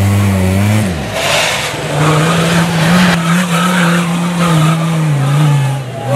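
Off-road trial vehicles' engines working hard up a steep dirt slope. One engine's note falls away about a second in. A Land Rover Defender's engine then holds high, fairly steady revs with small wavers as it climbs, easing off near the end.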